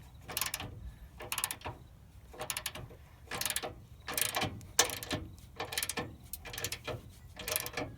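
Socket ratchet wrench clicking in repeated back-and-forth strokes, about ten in a row, as it tightens the nut on a camber (cam) bolt in the front suspension.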